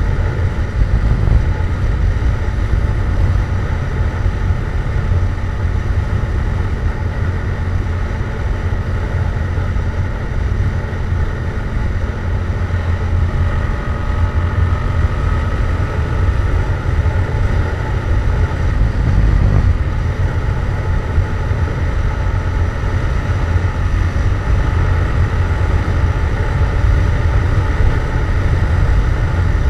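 Yamaha MT-07's parallel-twin engine breathing through a Jeskap GP aftermarket exhaust, running at a steady cruise on the road with a deep, even rumble.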